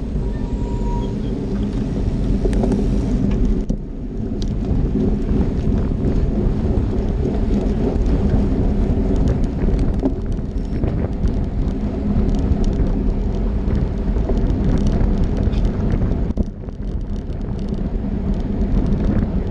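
Wind buffeting the microphone of a camera on a moving road bike, mixed with tyre noise on asphalt. The noise is loud and steady, dropping briefly twice.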